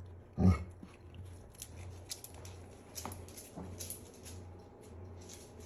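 A dog gives one short vocal sound about half a second in, then only faint scattered light ticks and taps.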